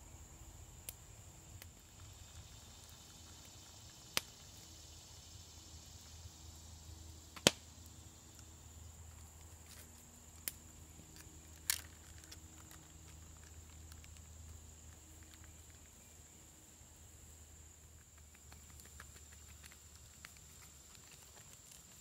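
Insects buzzing steadily in a high, even band, over a few sharp clicks and knocks of camp gear being handled, the loudest about seven and a half seconds in. Near the end comes a run of small light clicks as a knife works a small stick.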